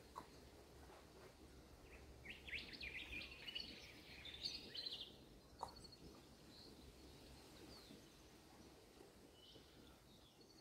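Birds twittering: a quick run of high chirps lasting a few seconds near the middle, with a few fainter calls before and after, over a quiet background.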